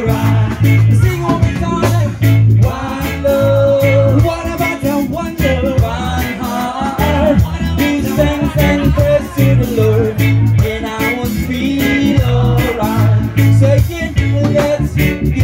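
Reggae band music with a repeating bass line, guitar and singing.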